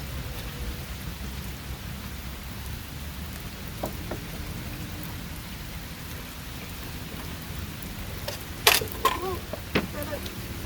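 Steady rain falling, with a low rumble underneath. Two light knocks about four seconds in, and a louder short clatter of items being handled near the end.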